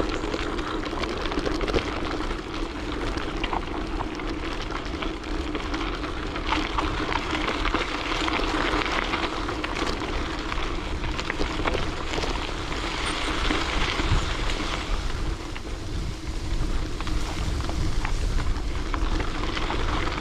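Wind rushing over the microphone with road and tyre noise while riding a bicycle: a steady rumbling hiss with small crackles.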